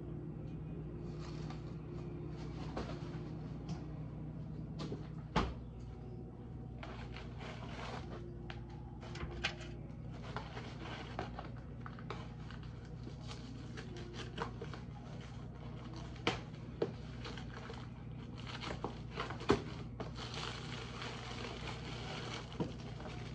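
Kitchen handling noises at a stove: scattered clicks and knocks of cookware, utensils and food packaging being handled, over a steady low hum, with a stretch of rustling near the end.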